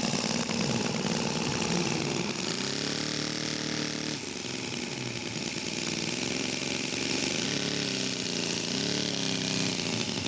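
Radio-controlled scale model airplane engine running, its pitch rising and falling twice as it is throttled up and down or passes by.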